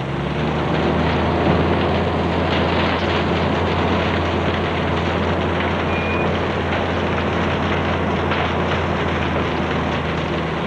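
Airport crash tender running hard with its engine and pump driving the roof and bumper monitors. A steady, deep engine drone sits under a continuous rushing hiss from the water or foam jets.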